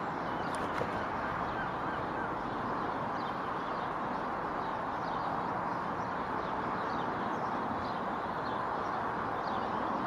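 Steady outdoor background hiss, with faint, short bird chirps repeating throughout.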